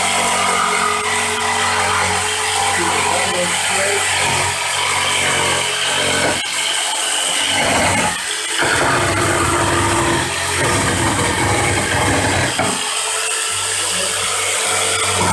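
DeWalt electric jigsaw running under load, its reciprocating blade cutting through a wooden pallet slat, with a steady motor hum and a few brief dips in the middle.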